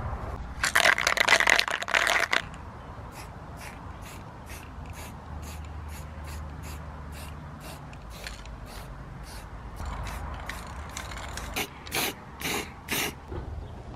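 Aerosol spray can of red paint hissing in bursts: a long spray about a second in, then several short spray bursts near the end. Between them comes a run of short, evenly spaced sharp sounds, about two a second.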